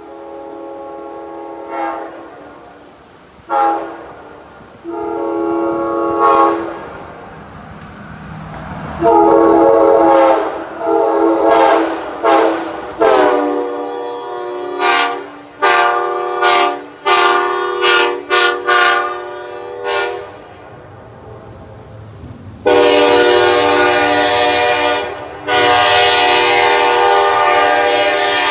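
Nathan Airchime K5LA five-chime locomotive air horn, an early-1990s tagless version, sounding its chord in a series of blasts. It gives a few short honks, then a longer blast, then a quick run of short toots, and finally one long sustained blast with a brief dip partway through.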